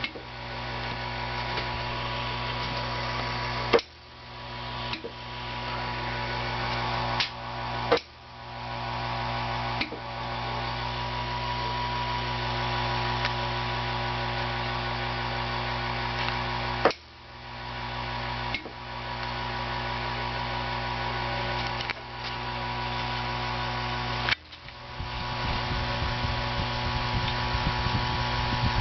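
6JE6C beam power tubes ticking: sharp ticks at irregular intervals of one to several seconds over a steady electrical hum. After each tick the hum briefly drops out and then recovers.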